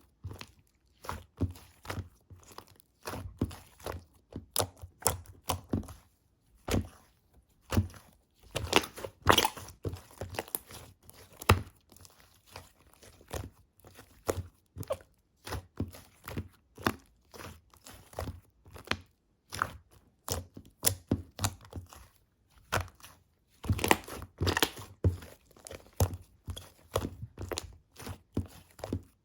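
Brown slime topped with clay being pressed and squished by hand, giving irregular crackly clicks and pops, several a second, with short pauses between handfuls.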